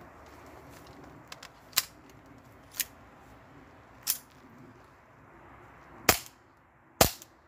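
Novritsch SSP5 gas airsoft pistol firing two sharp shots about a second apart near the end, into a chronograph, after a few lighter sharp clicks earlier.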